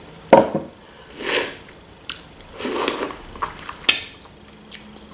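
A person biting and chewing a piece of sardelka sausage close to the microphone: a sharp click about a third of a second in, two longer noisy mouth sounds around one and a half and three seconds, and another click near four seconds.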